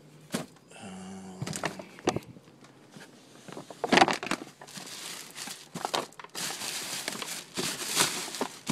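Plastic bags and boxes of fireworks being handled and moved, rustling and crinkling, with scattered knocks; the loudest is a sharp knock about four seconds in, and the crinkling thickens near the end.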